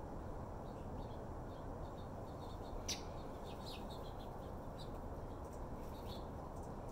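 Small birds chirping now and then, short high chirps with one louder chirp about three seconds in, over a steady low background rumble.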